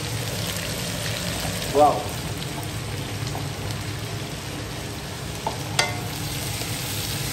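Sliced red onions sizzling in hot oil in a wok while a wooden spatula stirs them, with a single sharp knock a little before the end.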